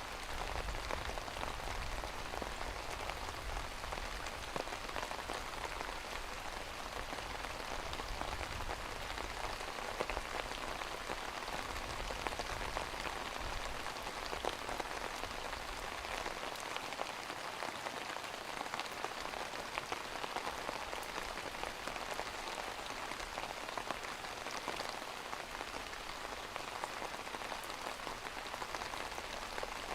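Steady rain falling on a surface, a dense patter of drops, with a faint low rumble that fades out about halfway through.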